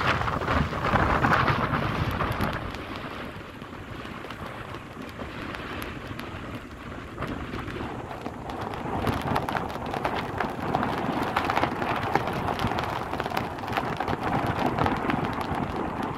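Rough storm surf breaking on a sandy beach, a continuous noisy wash with gusty wind rumbling and crackling on the microphone. It swells louder in the first couple of seconds and again in the second half.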